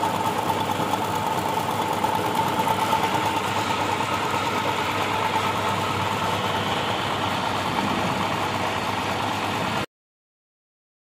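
HTP sprayer pump belt-driven by an electric motor, running steadily with a continuous mechanical din and a high steady tone. It cuts off abruptly near the end.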